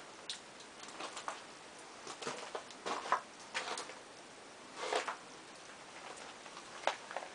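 Water dripping inside a ruined concrete bunker: irregular drops tapping down at uneven intervals.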